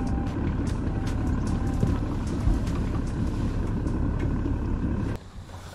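Bass boat running at speed: the outboard motor drones steadily under heavy wind buffeting on the microphone. The sound cuts off abruptly about five seconds in.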